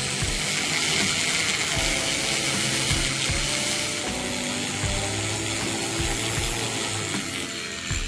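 A jeweller's small rotary tool running against the silver piece, a steady high grinding hiss, over background music; the hiss dies down near the end.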